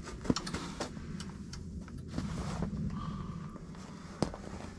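Handling noise inside an ice-fishing shelter: scattered sharp knocks and rustles from people shifting on their chairs and handling jigging rods, the loudest knock about a third of a second in, over a steady low hum.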